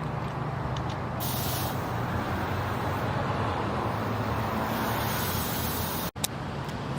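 Air hose hissing as air is pumped into a car tire, over a steady low hum; the hiss starts about a second in and stops a few seconds later.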